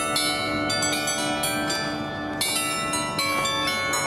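The Federation Bells, upturned bells on poles, playing a tune: a run of struck bell notes at several pitches, each ringing on under the next.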